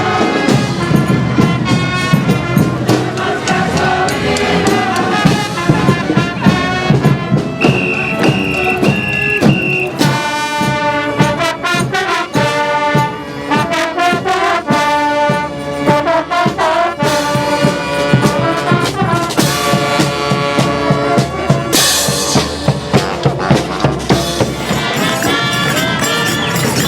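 Street brass band playing: trumpets and trombones over a steady drum beat, with one high note held for about two seconds partway through.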